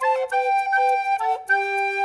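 Background music: a flute melody of short, stepping notes.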